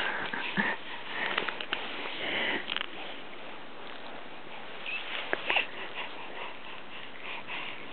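A six-month-old baby's soft sniffing and breathing close to the microphone as he chews and mouths a plastic toy, with small wet mouth clicks.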